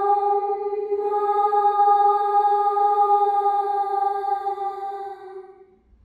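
A creepy little girl's voice letting out one long wailing cry, held on a steady pitch and fading away near the end.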